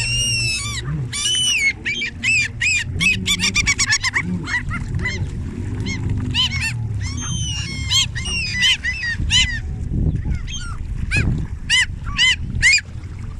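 A flock of birds calling, many short high-pitched calls overlapping thickly at first and coming more spaced out in the second half, over a steady low rumble.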